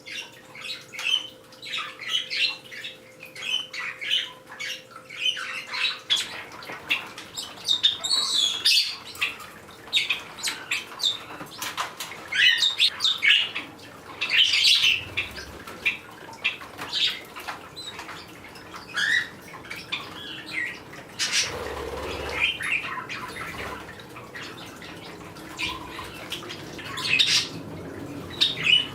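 Small parrots, Bourke's parrots and kakariki, chirping and squawking in short calls, with bursts of wing flapping.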